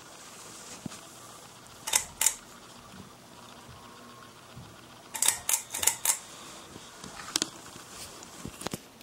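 Hampton Bay Huntington II ceiling fan with a faint steady whir, broken by sharp clicks: two at about two seconds in, a quick run of about five a little past the middle, and single clicks later on.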